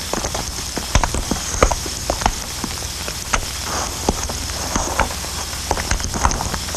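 Irregular clicks and knocks, several a second at uneven spacing, over a steady hiss: footsteps and gear being handled by the cannon's gun crew.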